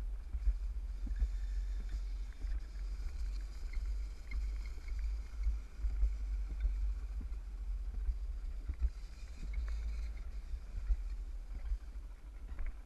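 Alpine slide sled running down its trough: a steady low rumble with scattered small knocks from the sled on the track.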